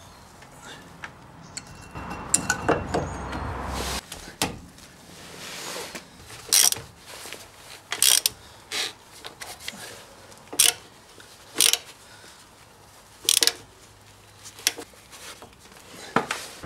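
Metal clicks and knocks as a front brake caliper is fitted back over the disc and fastened, with about eight separate sharp clicks spread over the second half. Before that comes a louder scraping, rumbling stretch about two seconds in that stops abruptly.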